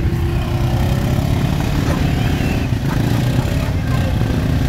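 ATV engine running steadily under load as the quad works through a muddy trail hole.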